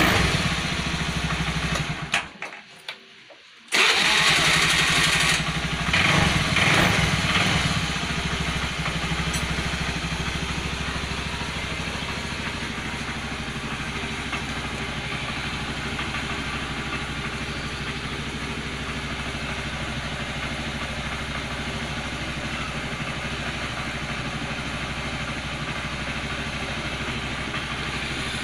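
Honda Vario 110 scooter's single-cylinder four-stroke engine running, revved loudly a few times, then settling to a steady idle. The sound drops out briefly about two seconds in and comes straight back.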